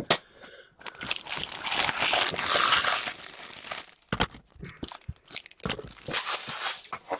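Crinkly foil pack wrappers being crumpled and handled, loudest in a long run of crackling about a second in, then a string of short clicks and light knocks as things are set down on the table.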